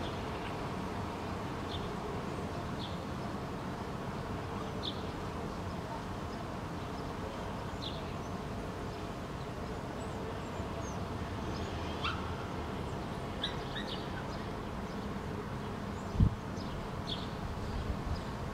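Steady outdoor background hum with scattered short, high bird chirps every second or two, and a single low thump about two seconds before the end.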